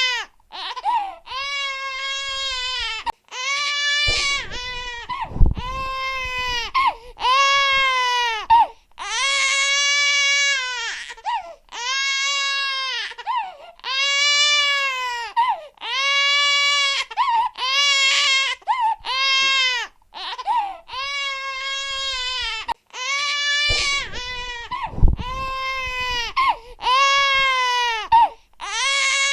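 Infant crying hard in a steady run of loud wails, each about a second long, rising then falling in pitch, with short gasps between them. A brief low thump comes twice.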